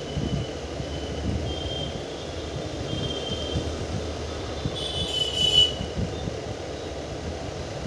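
Passenger express train running: a steady rumble of wheels on the rails, with thin high wheel squeals coming and going and one louder squeal about five seconds in.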